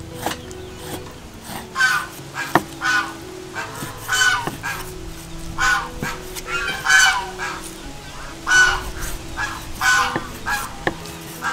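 Cleaver chopping raw pork belly on a wooden chopping board, a sharp knock every second or few. Poultry honk over it again and again, loudest about the middle.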